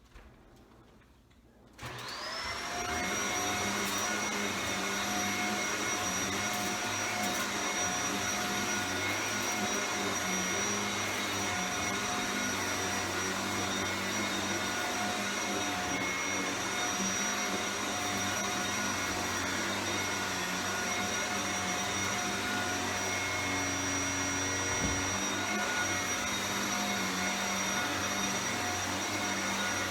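Shark Powered Lift-Away Speed upright vacuum cleaner switched on about two seconds in, its motor whine rising as it spins up and then running steadily.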